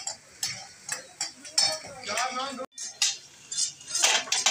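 Long metal tongs and a ladle clinking and scraping against a large karahi as mutton in gravy is stirred, in irregular knocks.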